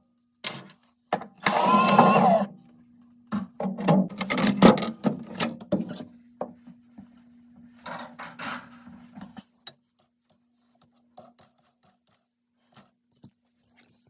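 A power drill whirs briefly, driving out screws, then parts and panels clatter and knock as they are handled, over a faint steady low hum. The last few seconds are nearly quiet.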